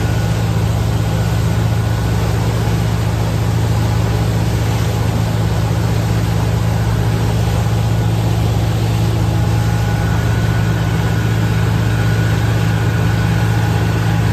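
Boat engine running at a steady speed, a constant low hum that holds one pitch throughout.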